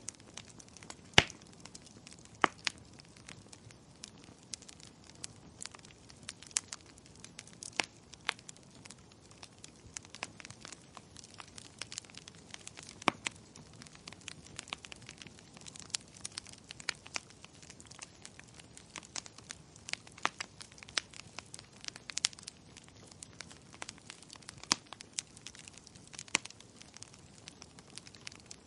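Wood fire crackling: irregular sharp pops and snaps over a low steady hiss of the burning, one loud pop a little over a second in.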